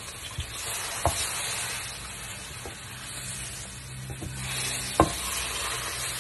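Salmon sizzling in a frying pan while a wooden spatula stirs it. A few sharp knocks of the spatula against the pan come through, the loudest about five seconds in.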